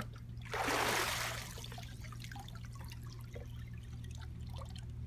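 A person is lifted back up out of swimming-pool water after full immersion: a short rush of splashing water about half a second in, then water dripping and trickling off her body back into the pool.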